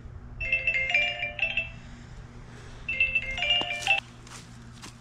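Smartphone timer alarm going off: a short, bright chime melody plays twice, the phrase repeating about two and a half seconds apart, signalling that the 30-minute timer has run out.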